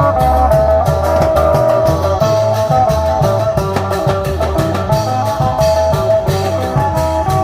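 Isan klong yao long-drum band playing a brisk procession tune: a steady drum beat with sharp percussion strokes under a plucked-string melody.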